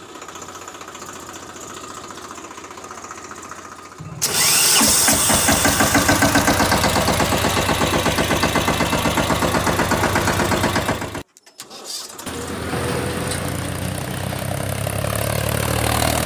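Tractor engine running with a fast, even beat. It is moderate at first and much louder from about four seconds in, cuts off abruptly at about eleven seconds, then starts again and builds.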